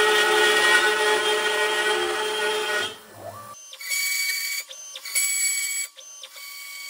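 Makita trim router on a Shapeoko 5 Pro CNC spinning a 1/4-inch downcut end mill at 18,000 RPM and milling melamine particle board. It runs as a loud, steady whine with the noise and chatter the downcut bit gave at a quarter-inch depth of cut. About three seconds in it cuts off, and a quieter, higher machine whine follows, starting and stopping three times.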